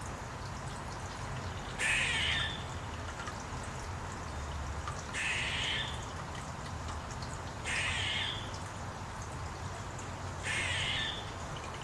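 A crow cawing: four caws, each under a second, about three seconds apart, over a steady low hum.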